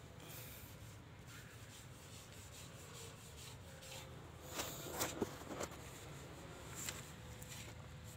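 Faint scraping and rubbing: a few short scrapes about halfway through and one more later, over a steady low rumble.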